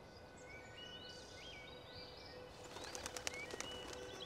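Small birds chirping with short rising calls, then a rapid run of sharp wing flaps about two-thirds through as birds take flight. A low, held musical tone comes in underneath near the end.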